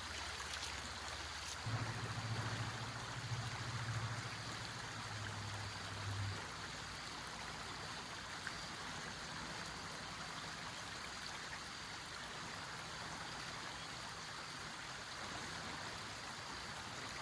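River water running steadily, an even rushing hiss, with a low rumble for a few seconds near the start.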